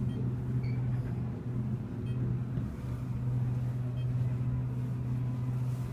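ThyssenKrupp traction elevator car travelling between floors: a steady low hum inside the cab, with a few faint short high tones.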